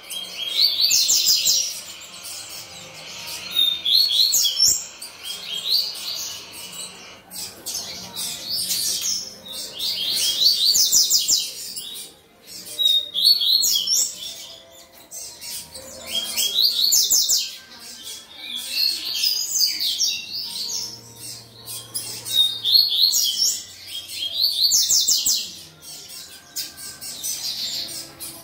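Young double-collared seedeater (coleiro) singing: short phrases of rapid, high chirping notes, repeated every two to three seconds.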